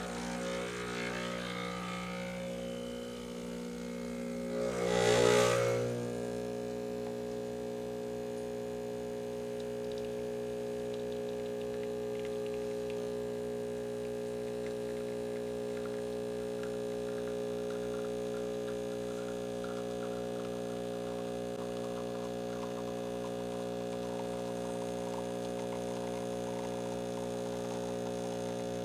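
Breville Barista Express vibratory pump humming steadily as it pulls an espresso shot. There is a brief louder noise about five seconds in.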